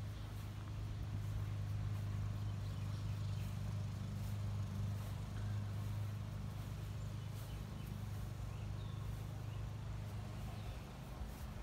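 A steady low hum through the whole stretch, with a few faint bird chirps now and then.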